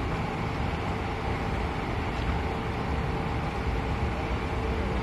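Large diesel coach engine idling, a steady low rumble with a faint even hum above it.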